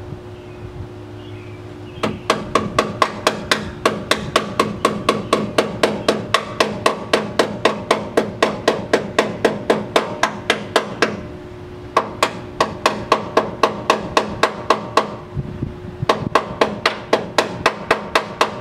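A hammer striking metal in quick, even blows, about four or five a second, each blow ringing briefly. The blows come in three runs, with short pauses about two-thirds of the way in and again a little later.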